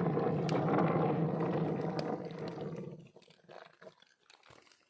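Low, rough snoring noise from a cut ironwood tree as it oozes thick red sap, like a cow being slaughtered. It fades out about three seconds in.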